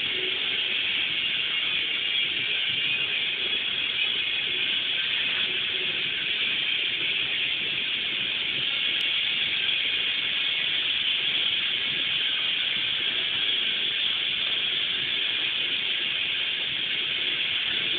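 Steady, even hiss with no distinct blows or voices standing out of it.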